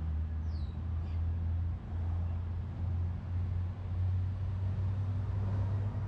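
Low, steady rumble of a motor vehicle engine running nearby, with a bird's short falling chirp about half a second in.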